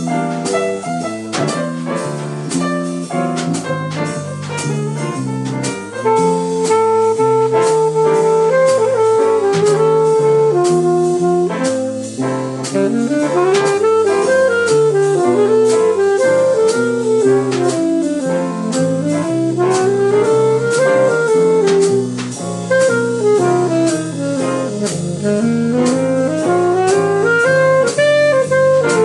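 Jazz combo playing an instrumental break, with a saxophone taking the lead over drum kit. The lead gets louder about six seconds in, and in the second half plays quick runs that rise and fall.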